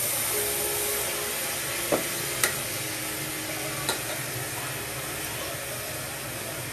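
Sizzling and scraping in a pressure cooker as raw basmati rice is stirred into fried mushrooms and onions with a metal ladle. The ladle knocks against the pot three times, about two, two and a half and four seconds in.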